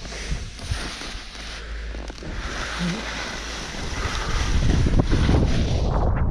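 Wind rushing over the GoPro's microphone while skiing downhill, with the hiss of skis sliding on snow; the low wind rumble grows louder about four seconds in.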